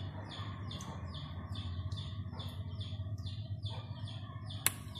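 A bird chirping over and over in an even rhythm, nearly three short falling chirps a second, over a steady low hum. A single sharp click sounds near the end.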